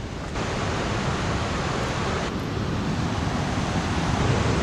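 Snowmelt mountain creek rushing and cascading over rocks, a steady roar of water that steps up in loudness about half a second in.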